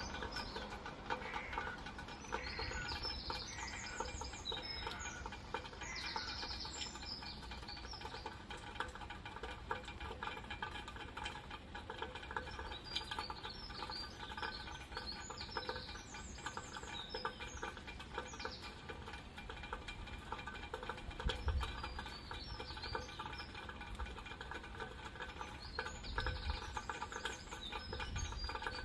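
Steady rain pattering with birds chirping at intervals, and a couple of brief low rumbles about two-thirds of the way through and near the end.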